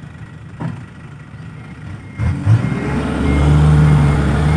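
Diesel dump truck engine idling, then revving up about two seconds in as the loaded truck backs up to tip its fill soil, with a reversing beeper chirping.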